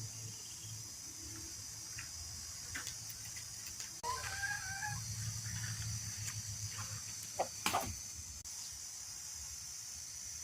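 A rooster crowing once, about four seconds in, over a steady high hiss and a low hum, with a few short clicks near the end.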